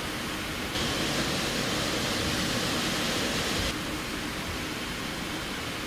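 Steady rushing cockpit noise of a Boeing 777F standing on the ground with both engines running at idle, air-conditioning airflow mixed with engine noise. The hiss grows brighter about a second in and drops back near four seconds.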